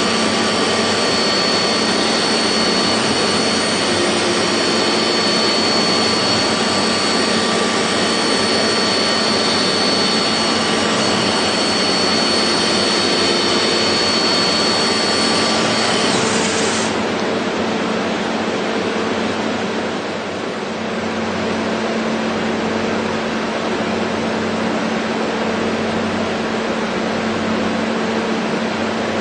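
CNC machine running: a loud, steady whirring hiss with a thin high whine over it. About halfway through, the whine and the highest part of the noise cut off, and a slightly quieter steady machine noise carries on.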